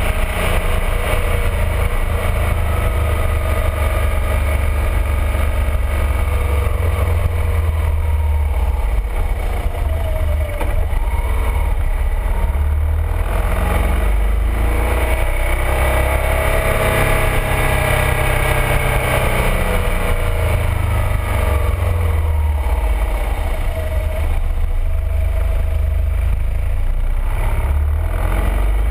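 BMW R1200RT's boxer-twin engine running under way, its pitch rising and falling with the throttle through the bends. This sits over a heavy, steady low rumble of wind on the bike-mounted camera.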